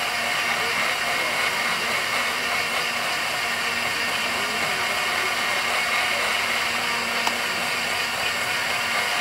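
Electric countertop blender running steadily, its motor whirring at one even pitch as it blends a liquid drink in the jar.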